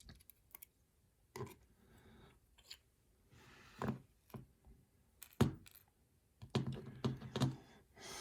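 Light, scattered clicks and taps of small lock parts being handled: pin-tumbler pins and springs from a gutted lock core, set down and picked over, with a quicker run of clicks near the end.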